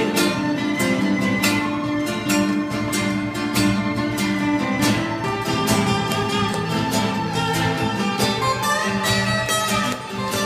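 Instrumental jam passage: a steel-string acoustic guitar and a nylon-string classical guitar strummed in a steady rhythm, with a violin playing long held notes over them.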